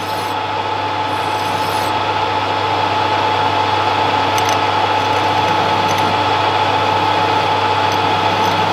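Warco mini lathe running steadily with a constant whine, while a flat file rubs on the spinning workpiece to clean its top surface.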